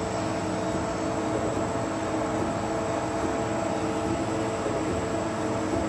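INDEX MS22C CNC multi-spindle screw machine running behind its closed enclosure door: a steady, even mechanical hum with several held tones that does not change in level.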